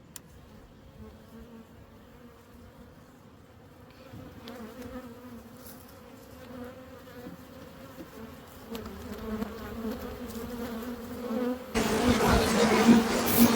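A colony of honey bees buzzing around an open hive, a steady hum. It swells gradually and jumps sharply louder near the end as bees fly close.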